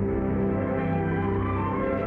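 Background film-score music: sustained held chords that shift about once a second.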